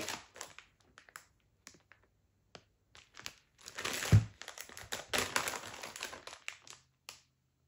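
Clear plastic bag crinkling as it is handled by hand around a loaf of wax melts: scattered crackles at first, then a dense stretch of crinkling from about four seconds in, with one low thump near its start.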